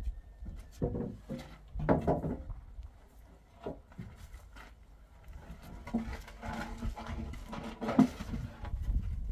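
Long wooden roof poles knocking and scraping against the cinder-block wall top as they are hauled up and laid in place: a run of irregular knocks and clunks, with the sharpest knock near the end.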